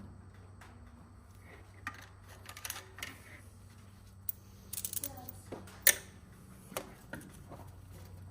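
Scattered light clicks and knocks of a link V-belt and metal parts being handled while the belt is worked onto the pulleys of a Ford 550 backhoe, with one sharp click about six seconds in. A steady low hum runs underneath.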